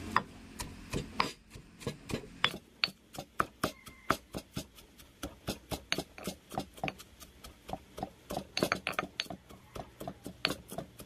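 Stone pestle pounding mackerel and chillies in a granite mortar: a steady run of stone-on-stone knocks, about three to four strokes a second.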